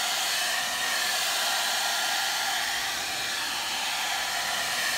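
Handheld hot-air blower running steadily, a continuous even rush of air, drying a freshly sprayed coat of leather paint.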